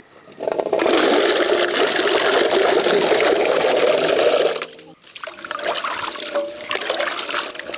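Water pouring steadily into a metal basin full of Indian gooseberries, stopping shortly before five seconds in. Hands then stir and rub the gooseberries in the water, a quieter, uneven sloshing.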